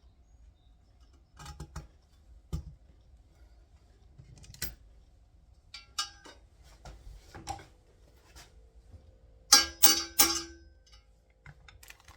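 Scattered metallic clinks and taps as a 6001 sealed cartridge bearing and hand tools are worked into the pivot bore of a chromoly steel bike frame. Some clinks ring briefly. The loudest is a quick run of three about ten seconds in.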